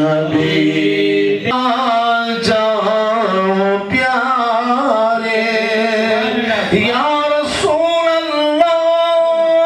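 A man singing solo into a handheld microphone, with no instruments: long drawn-out notes that bend up and down, broken by short breaths, and a long steady held note near the end.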